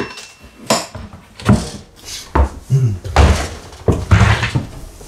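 Irregular knocks and clatter from a kitchen being taken apart, about seven or eight loud bangs and rattles in a small room.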